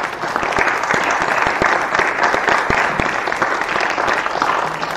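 Audience applauding, dense clapping that tapers off near the end.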